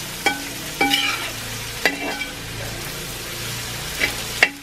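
Sliced onions and chillies sizzling while being sautéed in oil in a wide metal pan, stirred with a metal spoon that scrapes and knocks against the pan several times, each knock leaving a brief metallic ring.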